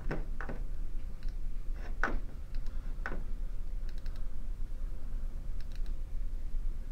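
Computer mouse clicks, a handful of sharp single clicks spread over the first three seconds and a few faint ticks later, over a steady low hum.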